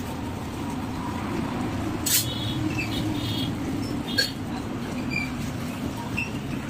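Steady low rumble, with a sharp click about two seconds in and another about four seconds in.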